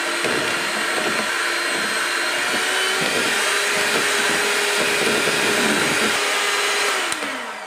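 Electric hand mixer running steadily at a fixed pitch, its beaters whisking egg, sugar and oil batter in a plastic bowl. Near the end it is switched off and the motor winds down, falling in pitch.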